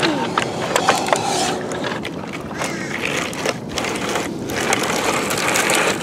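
Plastic clicking and rattling of a Bruder CAT toy excavator being worked by hand in wet sand and shallow water, many short clicks over steady outdoor noise.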